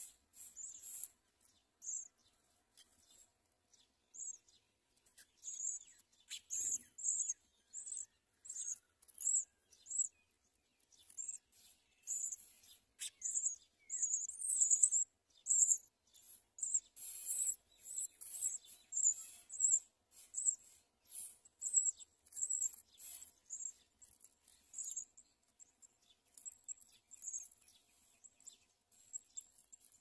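Songbird nestlings begging for food with high, thin cheeping calls, repeated about once or twice a second and busiest in the middle.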